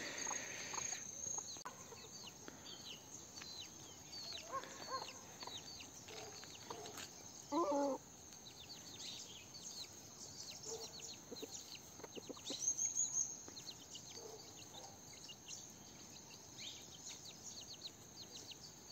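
Free-range chickens clucking softly now and then while foraging, with one louder call about eight seconds in, over many small high chirps and ticks. A steady high insect drone runs underneath.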